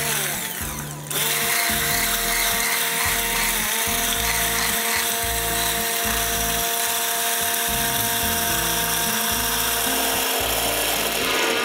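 Stick blender running steadily in a tall plastic container of soy milk while rapeseed oil is poured in, emulsifying it into mayonnaise. It settles into a louder, even drone about a second in.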